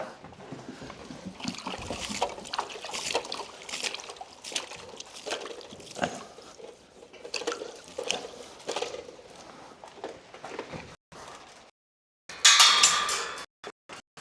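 Dry livestock grain pouring from a feed can into feeders, a patter of many small rattling grains that comes and goes in pours. Near the end the sound drops out briefly, then a short, louder rush of noise.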